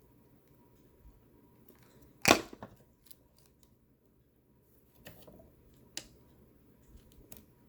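A sharp click about two seconds in, then a few fainter clicks and taps, from small tools being handled on a soldering bench.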